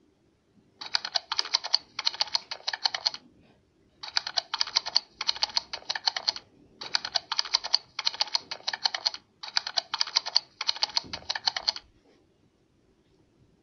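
Computer keyboard typing in quick runs of keystrokes with short pauses between them, stopping about twelve seconds in.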